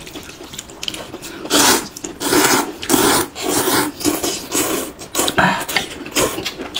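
Noodles being slurped loudly by two people: a run of long, wet, hissing slurps, one after another, starting about a second and a half in.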